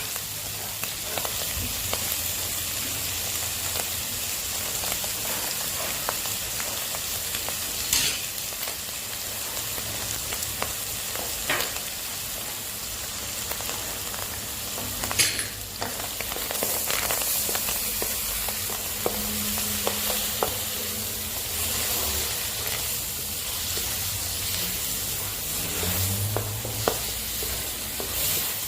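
Shrimp and squid sizzling in a hot pan as they are stir-fried with seasonings, with the spatula stirring and a few sharp clinks of the spatula against the pan.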